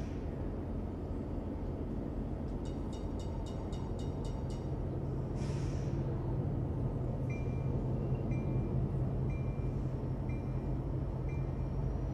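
HO scale model train running on the layout, with a steady low rumble. A run of quick clicks, about four a second, comes about three seconds in, and from a little past halfway a short high tone repeats about once a second.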